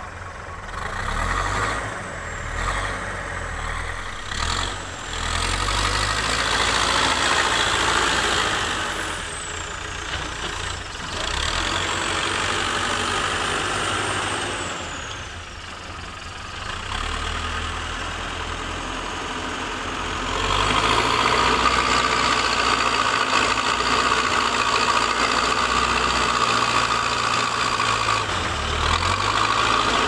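Terex TLB 740S backhoe loader's diesel engine running through a loading cycle, its pitch rising and falling with a whine as the throttle changes. It runs louder and harder from about two-thirds of the way in as the front bucket is driven into the soil pile.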